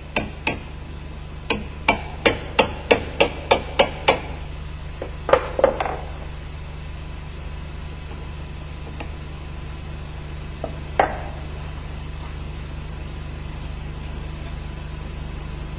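Light metal taps: a regular run of about nine at roughly three a second, a few more about a second later, then one last tap after a long pause. This is a hammer bending up tab washers to lock the screws of an MZ 250 motorcycle clutch body.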